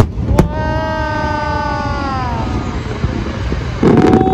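Aerial firework shells bursting: two sharp bangs at the start, then a long held tone that slowly falls in pitch, and a loud burst about four seconds in with another held tone.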